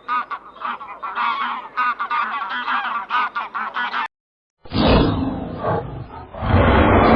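A flock of birds honking in many quick, overlapping calls for about four seconds. After a brief silence a different, louder and rougher animal sound starts.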